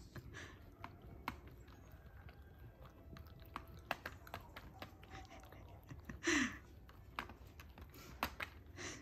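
Goldendoodle puppy working a plastic treat-puzzle toy with its nose, making faint, irregular clicks and knocks as the plastic sliders and pieces move, while it chews the treats it has found. A short breathy sound with a falling pitch comes about six seconds in.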